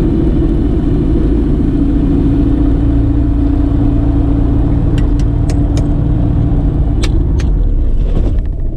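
The Evektor EV97 Eurostar light aircraft's piston engine runs steadily at taxi idle with its propeller turning, heard from inside the cockpit as a low drone. Several sharp clicks come in the second half, and the sound falls away right at the end.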